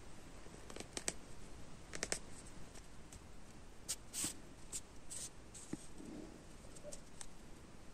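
Faint rustling and short scratchy swishes of yarn being drawn through crocheted fabric with a needle during hand embroidery, several strokes with the longest swish about halfway through.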